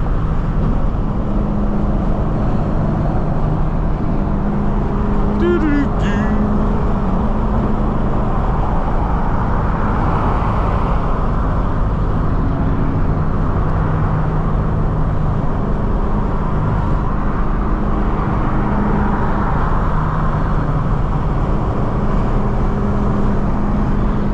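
A 2003 Mustang SVT Cobra's supercharged V8 running steadily under way, with tyre and road noise and a constant low hum. A brief faint high chirp comes about five seconds in.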